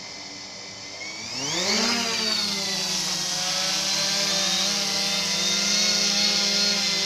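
UP Air UPair One quadcopter's electric motors and propellers spooling up in a rising whine about a second in as it lifts off. It settles into a steady buzzing hum while hovering.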